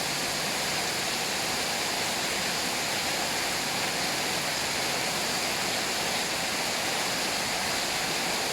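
Steady rushing water, an even unbroken hiss with no distinct splashes or other events.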